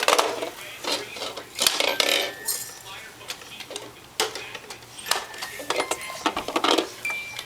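Hard plastic toy pieces clattering and clicking as a Fisher-Price Roll-a-Rounds gumball machine toy is handled, with irregular knocks and clinks throughout.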